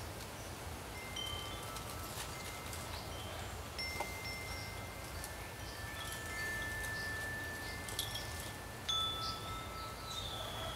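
Chimes ringing: clear single tones at several different pitches, struck one after another and overlapping, each ringing on for a second or two, with a few sharp clicks among them.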